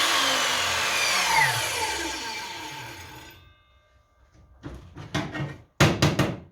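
Einhell table saw spinning down after being switched off, its pitch falling and the sound fading out over about three seconds. Then a few short scraping and knocking sounds, the loudest near the end.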